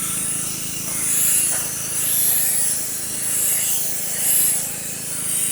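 Pressure washer wand spraying water onto a concrete driveway. The hiss swells and fades about once a second as the spray is swept back and forth, over the steady hum of the pressure washer's engine running.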